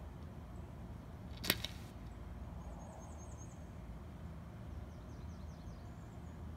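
Quiet outdoor ambience with a steady low rumble, broken about a second and a half in by a single sharp click. A bird chirps faintly in two short, quick runs of high notes.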